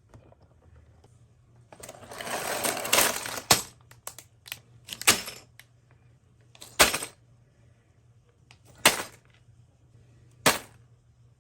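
Packaging being handled: a rustle of about two seconds, then five sharp snaps or clicks spaced a second and a half to two seconds apart.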